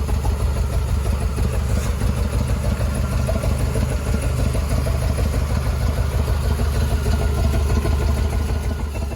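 Chevrolet 350 small-block V8 with Holley Atomic throttle-body fuel injection idling steadily. The owner suspects a vacuum leak behind its sputtering and loss of power.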